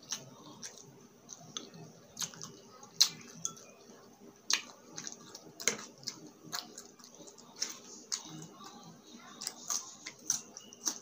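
Close-miked chewing of crispy fried food: irregular sharp crunches and wet mouth clicks, roughly two a second.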